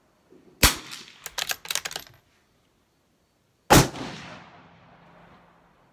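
Two sharp .22 rimfire rifle shots from a Brno Model 4 bolt-action, about three seconds apart, with a quick run of clicks between them; the second shot rings on under the range's roof before fading.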